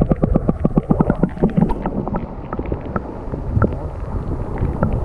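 Muffled water sound picked up by a camera held underwater: a low rumble of moving water with a quick run of clicks and ticks against the camera, dense for the first couple of seconds, then thinning to scattered ticks.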